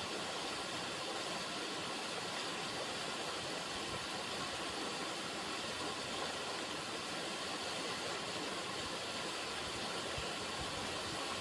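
River water running, a steady, even rushing with no breaks.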